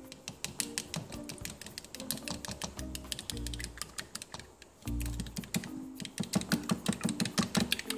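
A fork beating raw egg in a small plastic bowl: rapid, uneven clicks of the tines against the bowl, busiest in the second half. Light background music with a repeating bass line plays underneath.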